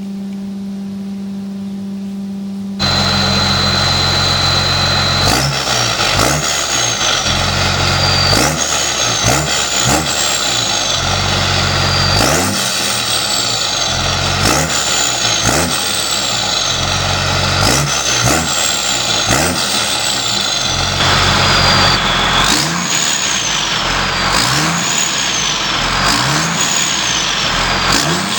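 New Holland TM150 six-cylinder turbodiesel tractor with a straight-pipe exhaust, revved over and over: after a low steady hum at the start, the engine comes in loud about three seconds in with a steady high turbo whistle, then each throttle blip, every second or two, sends the turbo whistle rising sharply and falling away again.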